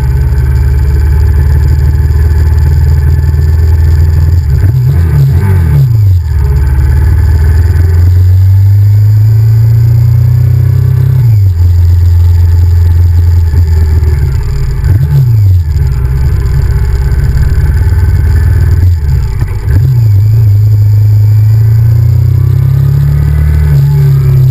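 Honda VTR1000F's 90-degree V-twin engine heard from onboard while riding. Its pitch climbs under throttle and drops sharply at the gear changes, with quick rises and falls in pitch several times.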